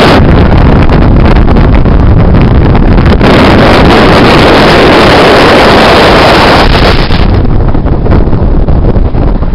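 Wind rushing over the microphone and road noise from a moving car, loud and blustery, growing harsher for about four seconds in the middle.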